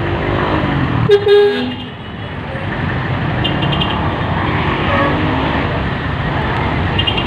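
Steady street traffic noise, with a vehicle horn honking about a second in, a short double toot that is the loudest sound.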